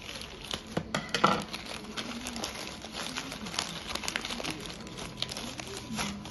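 Plastic courier mailer bag crinkling and rustling as it is cut open and pulled apart by hand. The crackles come in irregular flurries, with a sharp, louder crackle about a second in.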